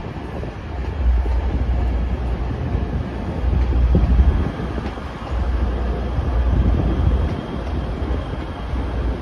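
Siemens Class 185 diesel-hydraulic multiple unit passing close as it pulls out, its underfloor diesel engines giving a heavy low rumble that swells and eases, with the wheels clacking over the rail joints and points.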